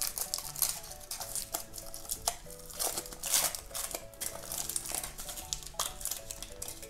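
A plastic or foil wrapper crinkling, with quick crackles and small clicks, as a surprise egg or toy packet is unwrapped by hand. Soft background music plays steadily underneath.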